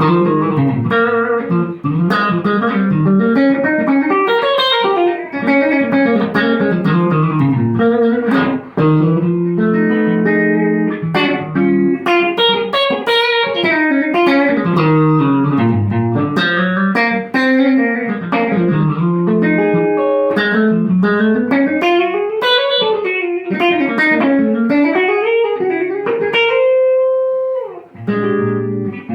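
Electric Telecaster guitar played through a Bell & Howell Filmosound valve amplifier with EL84 output valves, modified by Krinard. It plays fast single-note runs up and down the neck and ends on a held note that dies away near the end.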